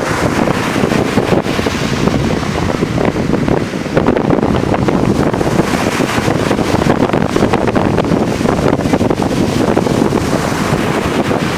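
Strong wind buffeting the microphone in continuous loud gusts, over the steady noise of large sea waves.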